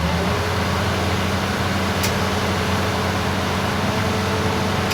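Heavy diesel engine running steadily, picking up speed at the start and then holding, with a single sharp click about two seconds in.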